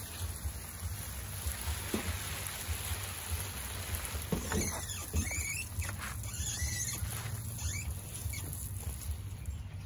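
Steady outdoor background noise with a light patter, a low fluttering rumble, and a few short chirps about halfway through.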